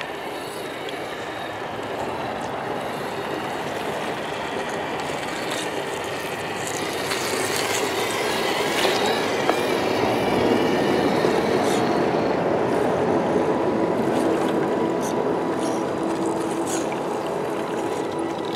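A shallow, rocky stream rushing, with the whirring electric motor and gears of radio-controlled scale crawler Jeeps driving through the water over rocks, growing louder around the middle, with scattered clicks of tyres on stones.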